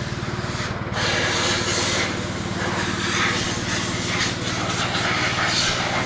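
A motor running steadily with a fast, even low pulse, with an uneven hiss and rubbing noise over it from about a second in.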